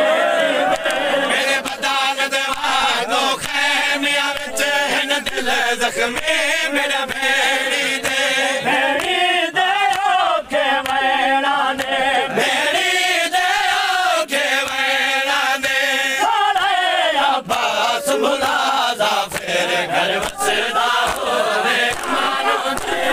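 Men chanting a noha, a Shia mourning lament: one reciter leads and the crowd of mourners joins in. Sharp slaps of matam chest-beating run throughout.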